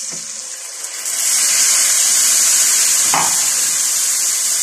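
Water poured into a hot pan of vermicelli browned in ghee, sizzling with a loud, steady hiss that swells about a second in. A brief knock about three seconds in.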